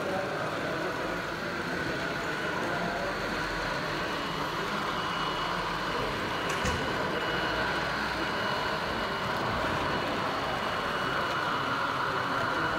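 Märklin H0 model trains running along the layout: a steady whir of small motors and wheels on track, over the constant background noise of a large exhibition hall. A thin steady whine joins about four seconds in.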